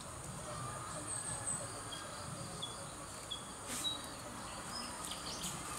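Steady high insect drone with short bird chirps scattered through it. A single sharp click about four seconds in is the loudest moment.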